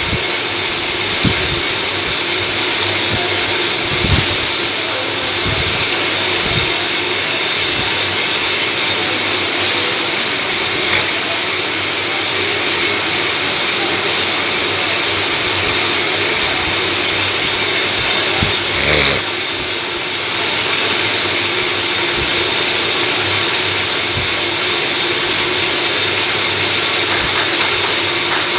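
Metal lathe running steadily, spinning a motor pump rotor shaft in its chuck: a continuous machine hum and whine. A few short sharp knocks stand out, the strongest about nineteen seconds in.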